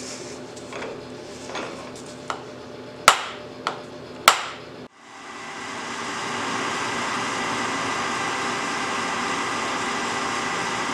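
A soft-faced hammer tapping a few times on a part clamped in a shaper vise, seating it down against the parallel. After a cut, a metal shaper's electric motor starts, comes up to speed over about a second and then runs steadily.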